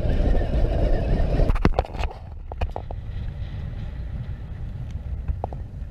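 Steady low rumble of a small boat under way at trolling speed, its outboard running with wind on the microphone, loud for about the first second and a half. Then come several sharp clicks, and a quieter steady rumble carries on.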